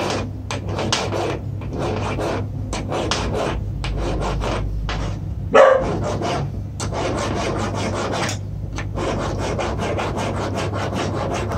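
Flat hand file rasping back and forth across the end of a small metal part of a vintage impact air screwdriver, in quick, even strokes, with one louder scrape about halfway through.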